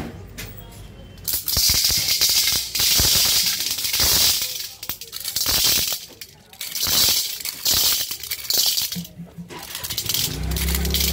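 Dried corn kernels rattling as a small hand-held corn sheller strips them off a cob and they drop into a steel bowl, in repeated bursts with short pauses between strokes.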